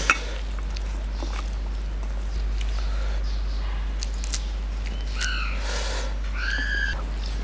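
Raw leafy greens being torn by hand, with scattered crisp clicks and snaps. About five seconds in, an animal calls twice in short notes that rise and fall.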